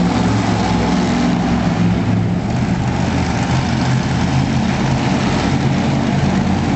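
Monster truck engine running loudly with a deep, steady note that shifts only slightly in pitch.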